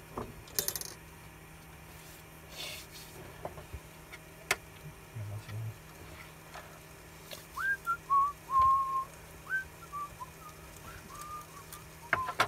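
A person whistling a short, idle tune of a few notes, some sliding up and some held, starting about halfway through. A few sharp clicks come before it.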